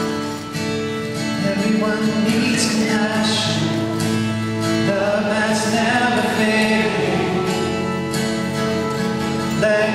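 A live band playing a worship song: strummed acoustic guitar over keyboard and a band backing, with voices singing.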